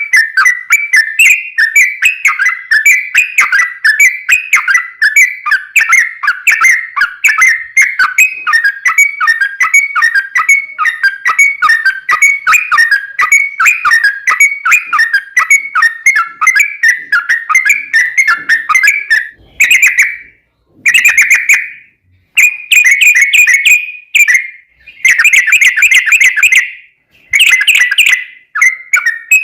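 Yellow-vented bulbul (trucukan) singing its long rolling song: a fast, unbroken run of bubbly notes, which breaks into separate short phrases with brief pauses after about twenty seconds.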